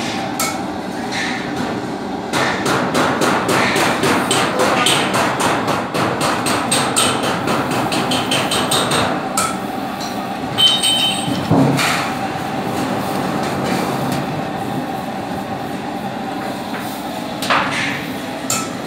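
Rapid metal tapping and scraping on a stainless steel water tank as copper tubing is soldered onto it with a heavy soldering iron. A fast run of strikes lasts several seconds, followed by a couple of single knocks, with a steady hum underneath.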